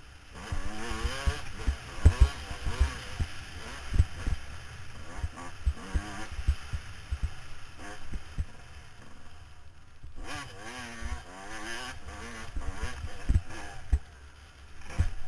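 Dirt bike engine ridden hard on a motocross track, its pitch rising and falling with throttle and gear changes, with frequent low thumps over the engine.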